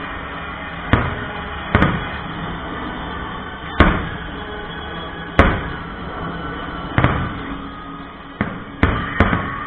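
Aerial fireworks shells bursting: about eight sharp bangs at uneven intervals, three of them close together near the end.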